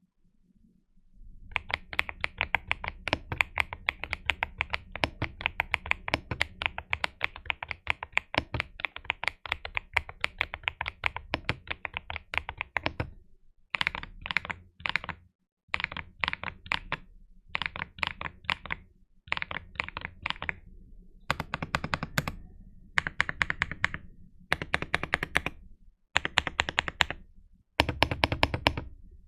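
GMK67 mechanical keyboard with AKKO V3 Creamy Blue Pro switches being typed on: fast continuous keystrokes at first, then from about halfway on a series of short typing runs separated by brief pauses.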